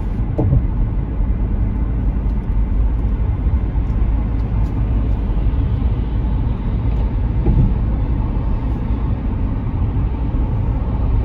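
Steady low rumble of a car on the move: road and engine noise, loud and even, with no clear changes.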